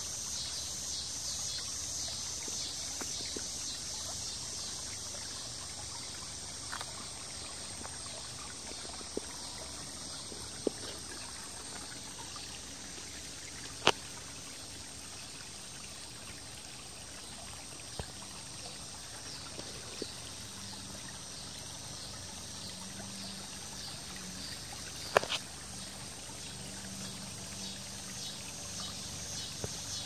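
Creek water trickling over rocks, under a steady, rapidly pulsing high trill of summer insects. A few sharp clicks or knocks stand out, the loudest about halfway through and again later.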